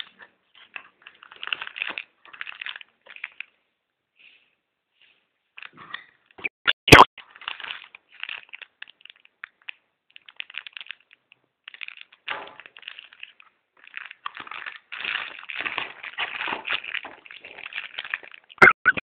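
Handling noises from unboxing a phone: irregular rustling and crinkling of packaging with scattered clicks, a short pause, and one sharp knock about seven seconds in.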